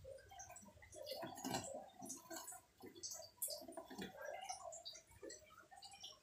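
Faint, scattered small clicks and light water sounds as pinches of kitchen salt are dropped by hand into acrylic betta fish containers.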